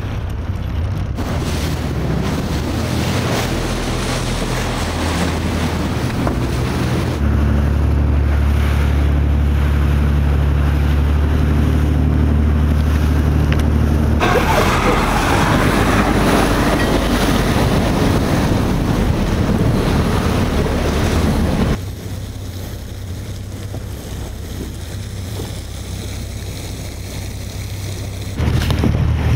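Wind buffeting the microphone and sea waves, over the steady low hum of inflatable boats' outboard engines running. The sound changes abruptly several times.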